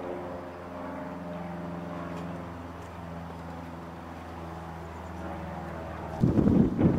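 An engine hums steadily off to the side, its pitch drifting slowly up and down. About six seconds in, loud wind buffeting on the microphone takes over.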